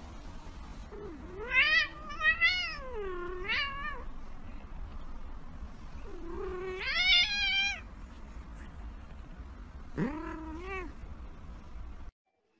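Domestic cat yowling while held on its back with a hand on its belly: three drawn-out calls with a wavering pitch, the last one shorter. A steady low hum runs underneath.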